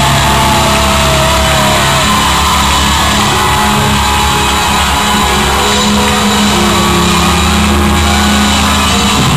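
Live pop-rock band with guitar and keyboard playing a loud instrumental passage, heard from the crowd.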